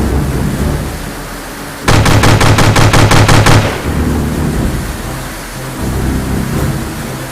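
Dubbed machine-gun sound effect: a sudden burst of rapid gunfire, about six shots a second for nearly two seconds, starting about two seconds in, over a steady low rumble.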